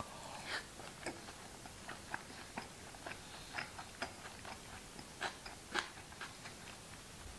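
A person chewing a mouthful of omelette: a run of short, irregular wet clicks, a couple of them louder near the end.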